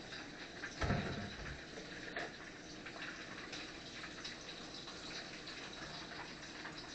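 Hot oil sizzling steadily in a frying skillet, with a low thump about a second in.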